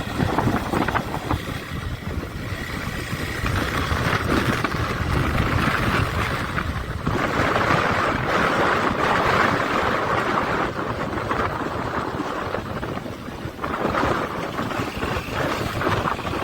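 Motorcycle running along a rough road, engine rumble mixed with wind buffeting on the microphone.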